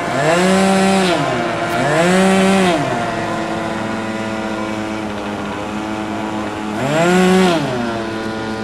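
Small model-aircraft engines running, with one engine revved up and back down three times, each rev holding its high pitch for about a second.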